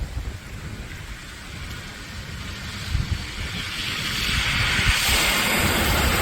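Wind rumbling on the microphone over a rain-like hiss, with a rushing noise that swells from about halfway through and is loud by the end.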